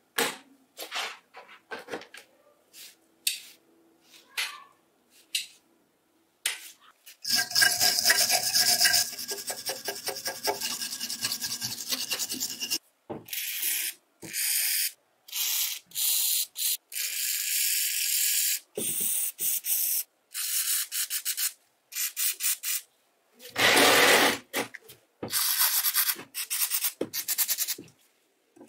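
Rubbing and scraping on a rusty metal bench grinder as it is handled. It comes as a series of short rough bursts with silent gaps between them, with a longer stretch of scraping about a quarter of the way in.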